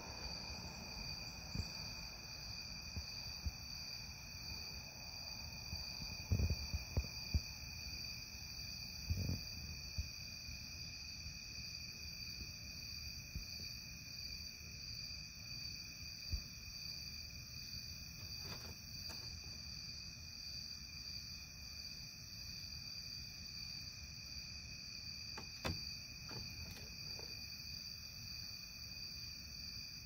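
Steady high-pitched chirring of night insects, with a low rumble beneath it. A few soft knocks and bumps stand out about six and nine seconds in, with fainter clicks later.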